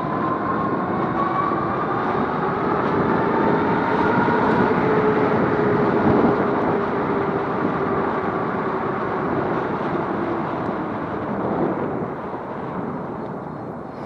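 Riding noise from an e-bike towing a trailer: wind rushing over the microphone and tyres rolling, with a faint whine that rises slightly in pitch over the first seconds and then holds. The noise eases a little near the end.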